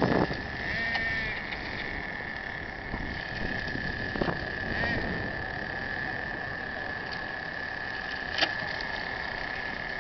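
Brushless electric motor of a radio-controlled on-road car running: a steady high-pitched whine whose pitch bends briefly about a second in and again near five seconds, with a sharp click about eight and a half seconds in.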